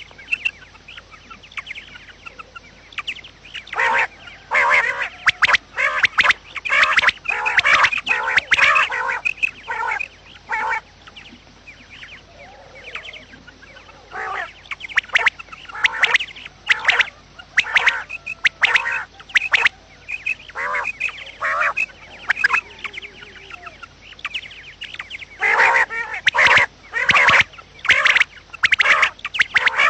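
Quail calling: short, sharp calls given in rapid clusters, several overlapping, with a quieter lull near the middle and a dense burst of calls near the end.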